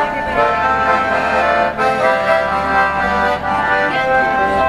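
Piano accordion playing a tune: held chords that change every second or so over a steady low bass.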